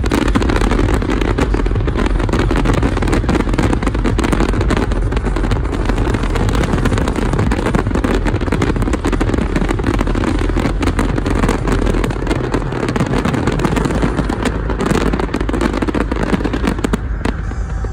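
Aerial fireworks shells bursting and crackling in a dense, continuous barrage of overlapping bangs and crackles.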